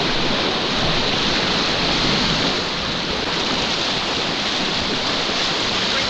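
Whitewater river rapids rushing steadily: a dense, unbroken hiss of turbulent water.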